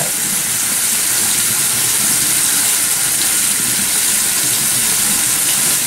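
Facial steamer running with a steady hiss.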